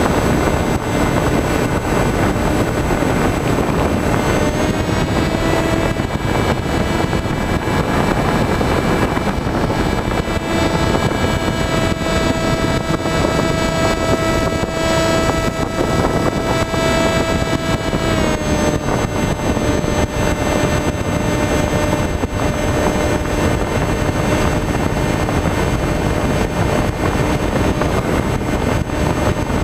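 Skywalker FPV plane's electric motor and propeller whining steadily under a constant rush of wind, heard from the onboard camera. The whine steps up in pitch about four and a half seconds in, and drops back down at about eighteen seconds as the throttle is eased.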